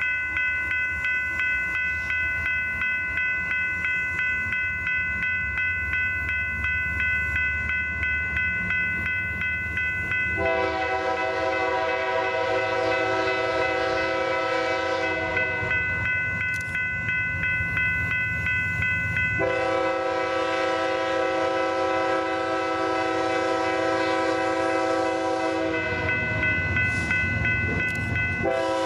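Freight train locomotive passing, its air horn sounding two long blasts of about five and six seconds, with a third starting near the end, over the steady rumble of the train. A steady high-pitched ringing runs underneath throughout.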